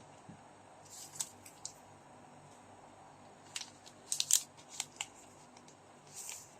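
Trading-card packaging being handled: short crackles and clicks of wrappers and cards. The loudest is a quick cluster about four seconds in, with a brief rustle near the end.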